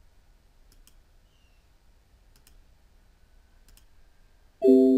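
A few faint computer mouse clicks, then, near the end, a loud electronic alert tone: a steady chord of several notes held without changing pitch.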